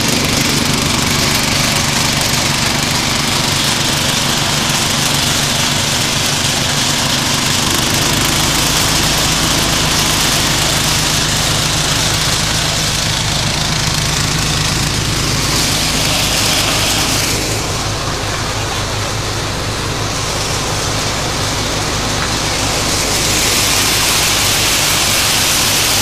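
Mini walk-behind combine harvester running steadily while cutting and threshing wheat. Its small air-cooled engine drones under a dense mechanical rattle and hiss from the cutter, threshing drum and fan. The engine note shifts slightly about eight seconds in.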